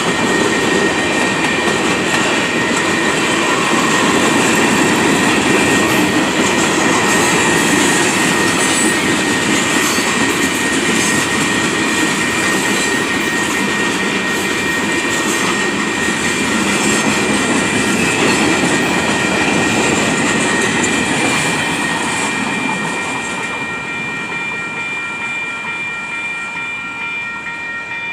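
Heavy freight train's cars rolling past, a steady rumble and clatter of wheels on rail with a thin high ringing tone over it. The noise grows somewhat quieter over the last few seconds.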